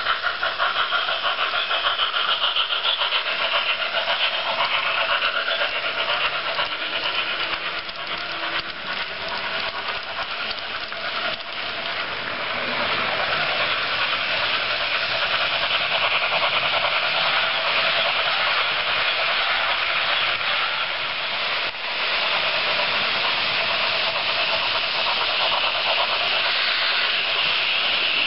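Märklin H0 model steam locomotives with ESU LokSound decoders: the digital steam chuffing from the loco's small speaker in a quick, even rhythm, then a steadier, louder rushing noise from about twelve seconds in as the model train runs close by on the track.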